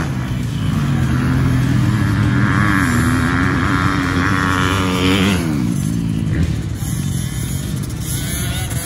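Small dirt bike engines running hard under throttle. The pitch holds steady, then drops about five seconds in as the throttle comes off, and the sound is a little quieter toward the end.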